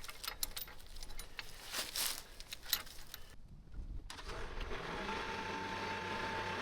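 Heavy steel chain clinking and knocking in short scattered clicks. After a brief silence about three and a half seconds in, a tractor engine runs steadily with a faint whine.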